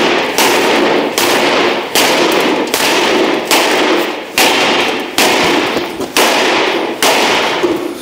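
Sledgehammer blows on a bent steel trailer door frame on a concrete floor, about ten heavy strikes a little under a second apart, each with a short metallic ring, hammering the bend out of the door to straighten it.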